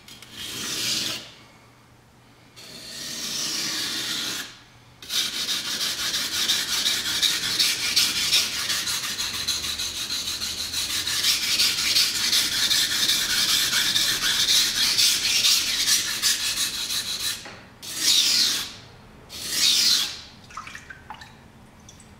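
An R2-steel Japanese chef's knife blade being scraped back and forth across a wet whetstone, grinding steel off the edge. There is a short pass at the start and another a few seconds in, then a long run of quick, even strokes, and two short passes near the end.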